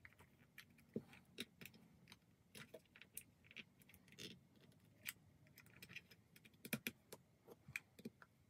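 Faint, scattered clicks and taps of a small plastic battery box for LED string lights being handled and pried at by fingers and fingernails, trying to get the battery cover open; the clicks come a little closer together near the end.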